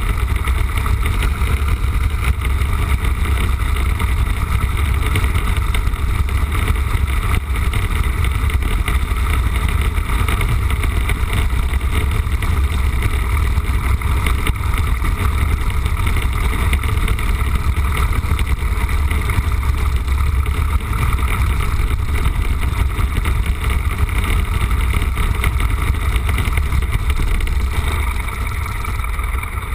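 Piper J3 Cub's engine and propeller running steadily at low taxi power, heard from inside the cockpit as a loud, low drone. It eases off slightly near the end.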